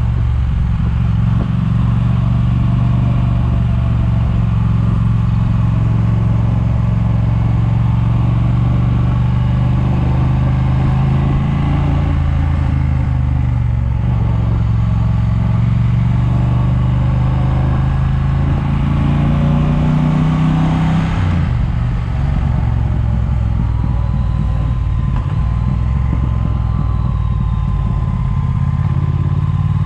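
Triumph motorcycle engine running at low road speed, with wind noise on the microphone. The engine note rises gradually and then drops sharply about two-thirds of the way in.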